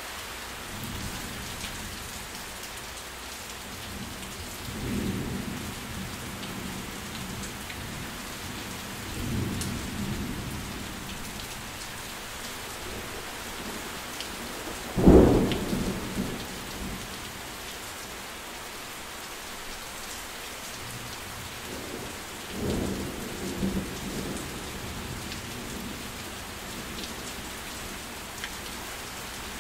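Steady rain, with thunder rumbling four times; the loudest is a sharp clap about halfway through.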